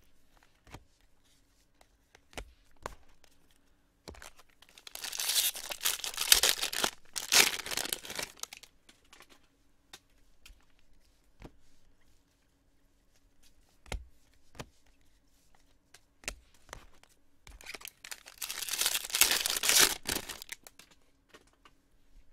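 Trading card pack wrappers being ripped open and crinkled in two long stretches, the second about twelve seconds after the first. Light clicks of cards being handled come in between.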